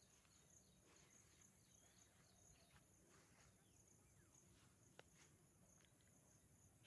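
Near silence: faint background noise with a faint, high, evenly pulsing tone, scattered soft ticks, and one sharp click about five seconds in.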